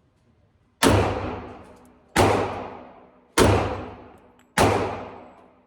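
A .45 ACP pistol fired four times at a steady pace, a shot about every 1.3 seconds, each one trailing off in a long echo.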